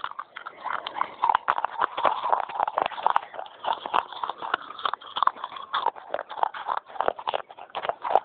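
Fast, crisp crunching of pieces of a soft baked-clay pot being chewed, one crunch after another with no pause.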